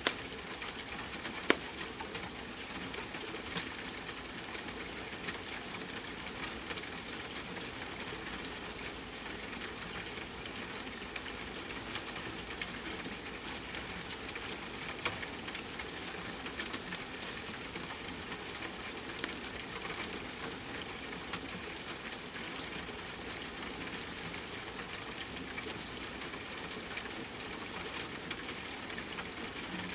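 Steady rain hiss under a crackling wood fire: frequent small pops throughout, with a sharper snap about a second and a half in.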